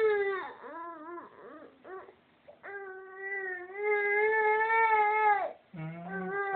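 Six-month-old baby crying after her vaccination injections. A few short cries come first, then one long wavering wail of nearly three seconds from about the third second, and another cry begins near the end.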